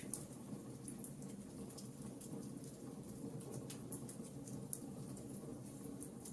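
Campfire crackling: a steady low rumble of burning wood with many small, irregular pops and crackles, and one sharper snap about three-quarters of the way through.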